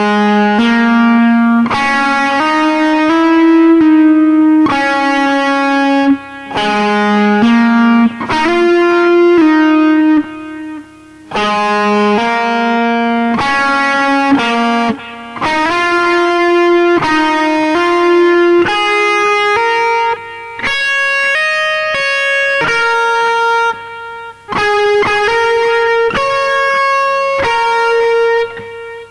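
Telecaster-style electric guitar playing a single-note lead solo line in D-flat, in phrases with short breaks between them. The melody climbs higher in the second half.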